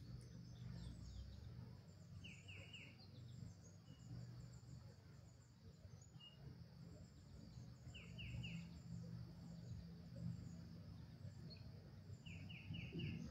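Faint outdoor ambience in which a bird calls three times, each call a quick run of three or four short falling notes, over a soft low rumble.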